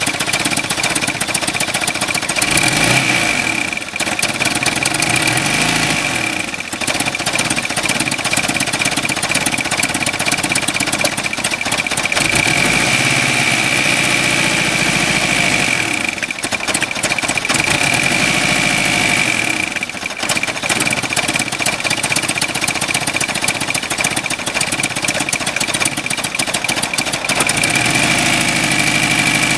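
Car engine running with a rapid, hammering knock and a steady high whine over it; the motor is bad.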